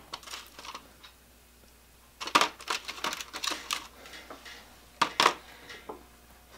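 Small steel drill-chuck parts clinking and rattling as they are picked out of a plastic parts tray and handled on a workbench. The sound comes as clusters of sharp clicks, the busiest run about two to four seconds in and two louder clinks at about five seconds.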